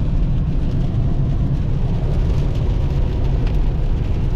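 Steady low rumble with a fainter hiss above it, unbroken throughout.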